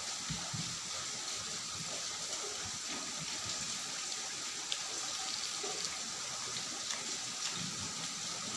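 Fingers squeezing and mixing cooked rice into curry on a steel plate: faint soft, wet squishes with a few small clicks, over a steady hiss.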